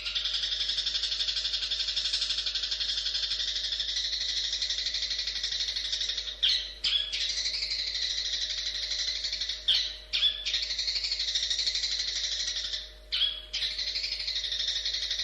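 Long-tailed shrike (cendet) singing a fast, continuous chattering song. It is broken by short pauses, each marked by a sharp, louder note, about six, ten and thirteen seconds in.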